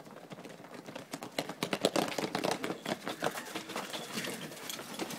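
Several people running on tarmac and grabbing bicycles off the ground: a fast, irregular clatter of footsteps and rattling bike frames, starting about a second in.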